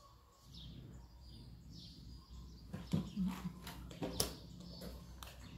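A few sharp clicks and taps, about three seconds in and again about four seconds in, as a plastic credit-card folding knife is handled and set down on a wooden table. Faint bird chirps sound in the background early on.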